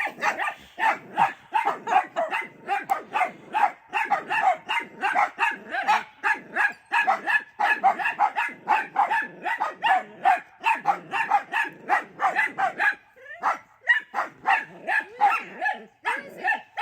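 Small weenie dogs barking rapidly and continuously, several high-pitched barks a second with overlapping voices, a short lull about thirteen seconds in.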